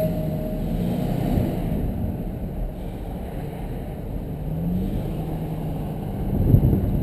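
Engine of an earth-moving machine running steadily, rising briefly in pitch about four and a half seconds in, with a louder bump about six and a half seconds in.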